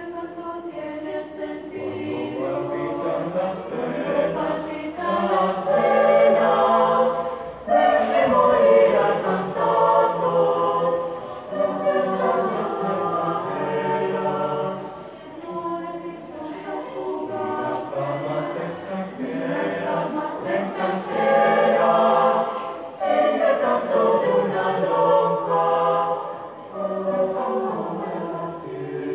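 Mixed teenage choir of girls and boys singing unaccompanied in parts, held chords swelling and easing off phrase by phrase, with short breaks between phrases about a quarter and a half of the way through.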